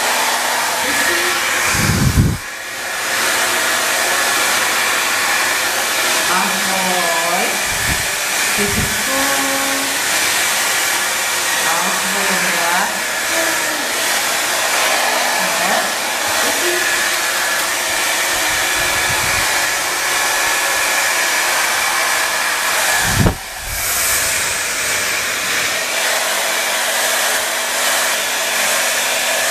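Hair dryer blowing steadily, drying a long-haired Persian kitten's coat after its bath. Twice a brief low thump cuts in.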